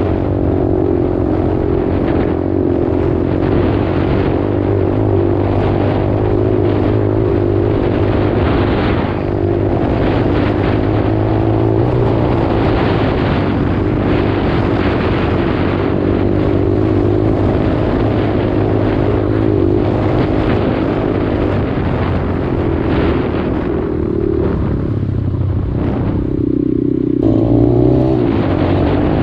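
A 125cc dirt bike engine running while the bike is ridden, its revs wavering up and down with the throttle. Near the end the revs climb and the engine gets a little louder.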